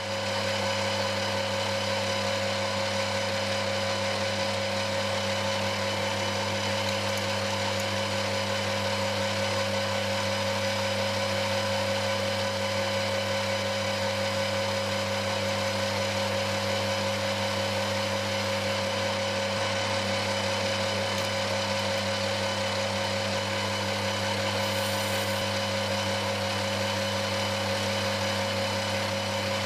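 Workshop machine tool running steadily under its electric motor: a constant hum with a fixed whine above it.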